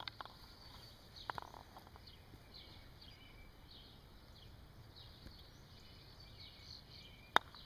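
Wooden-headed croquet mallet striking croquet balls: a click of a stroke at the start, a burst of knocks about a second in, and near the end one sharp, loudest clack as the mallet drives a split shot. Steady, rhythmic high chirping runs underneath.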